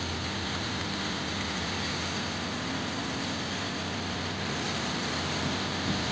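Steady street traffic noise, cars running on a wet road, an even hiss with a low rumble underneath.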